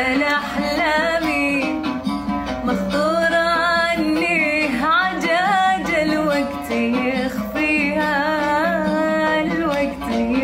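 A woman singing an Arabic song in long phrases with a wavering, ornamented voice over an instrumental backing with plucked strings.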